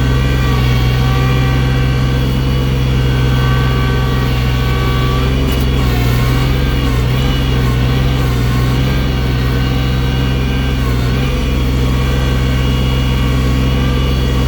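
Engine of a loader working snow with its bucket, running steadily under load, with a higher whine that wavers in pitch over it.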